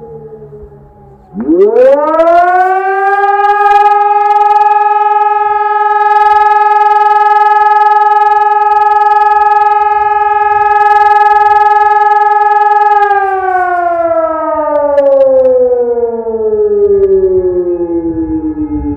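Hörmann ECI-DT 600 siren sounding its monthly test. The tone starts about a second in with a quick rise in pitch, holds one steady tone for about eleven seconds, then slowly glides down. At the very start the faint falling tail of the previous tone can be heard.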